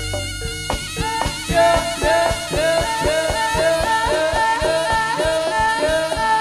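Live jaranan ensemble music: a reedy wind instrument plays a repeating melody with sliding notes over a steady drum beat. A deep gong rings low under the first second.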